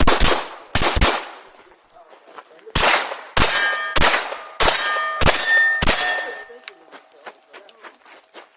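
A string of pistol shots at steel targets, about nine in all: a few quick shots, a short pause, then a steady string about every half second ending near six seconds in. The steel plates ring with a clear metallic tone after the hits.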